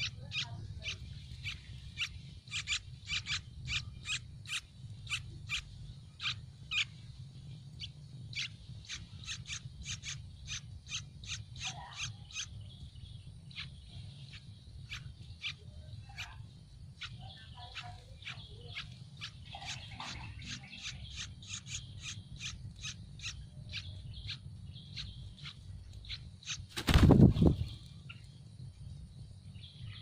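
Yellow-vented bulbul nestlings begging: rapid runs of short, high chirps, about three or four a second, in two spells with a pause of a few seconds midway. A low steady rumble sits underneath, and a single loud thump comes near the end.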